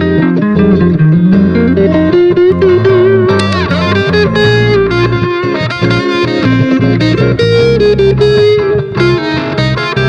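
Fender Stratocaster electric guitar through a Fender Super Champ amp playing a jazz improvisation: quick single-note lines with a few string bends, over a steady low part beneath.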